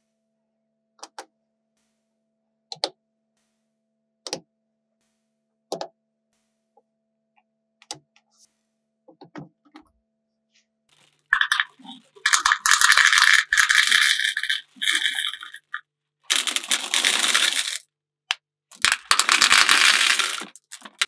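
Magnetic balls clicking as pieces snap into place, a single sharp click every second or two. About eleven seconds in, three spells of loud, dense rattling follow as M&M's candies are poured into the see-through hoppers.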